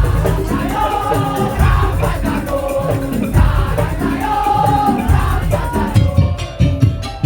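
Madurese tong-tong music ensemble playing: drums and percussion under a loud, held melody line. Near the end the melody drops back and the percussion beats out an even rhythm.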